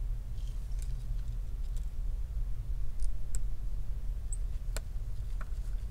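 A few light, scattered clicks and ticks of a small screwdriver or tweezers on the iPhone's tiny screws and metal parts, over a steady low hum.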